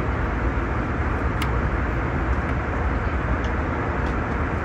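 Steady cabin noise inside an Airbus A320neo in flight, the even drone of engines and airflow. A light click about a second and a half in.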